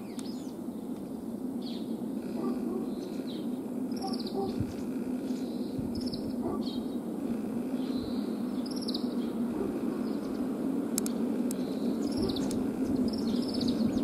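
White wagtail (black-backed subspecies) singing: short, quick chirps that sweep downward, strung together in runs throughout, over a steady low hum.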